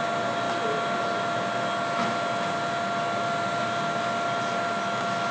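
Steady rushing roar of a glass studio's gas-fired reheating furnace (glory hole) and its blowers, with a few constant hums over it.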